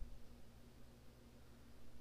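Very quiet room tone with a faint steady low hum.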